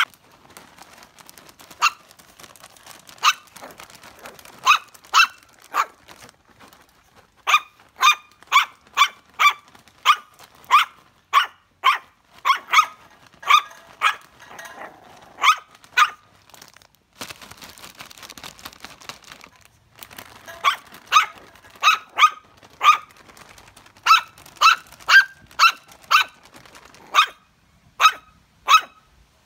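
A puppy barking in short, high yaps, over and over in runs of about two a second, with a pause of a few seconds just past the middle.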